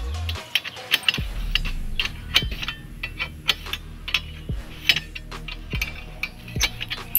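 Ratchet wrench clicking in irregular strokes as the bolts of a motorcycle exhaust elbow are tightened to seal the joint against leaks.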